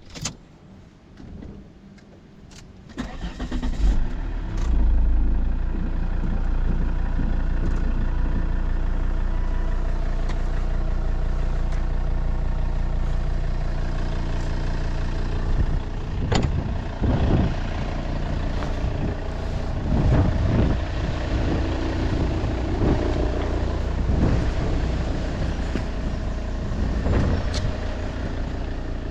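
Car engine started after a few clicks, catching about three seconds in and then running steadily at idle. From a little past halfway the engine note rises and falls in several surges.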